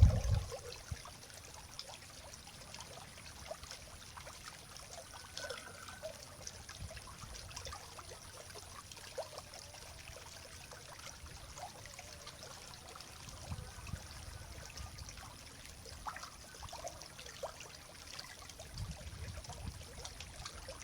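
Faint, steady trickle of a small river stream, with a low thump at the very start and a few soft low rumbles later.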